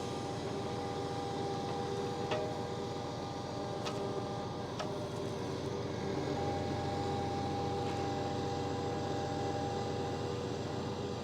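Log truck's diesel engine running steadily while logs are loaded, with a steady whine over it and a few sharp knocks in the first half.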